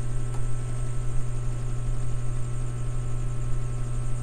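TCL CRT television running on an empty channel: steady static hiss from its speaker over a loud, constant low mains hum.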